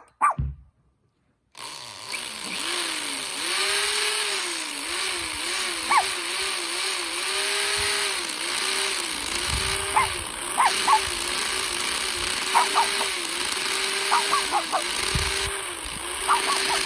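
A chainsaw engine starts up about a second and a half in and runs under load as it cuts into a log, its pitch dipping and recovering again and again. Several short high-pitched squeaks sound over it.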